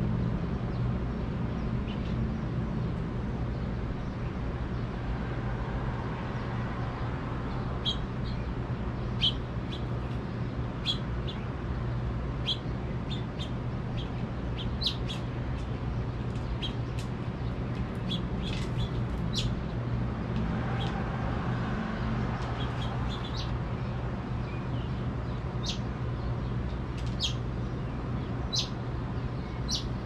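House finches chirping in short, scattered calls that start about eight seconds in, over a steady low background hum.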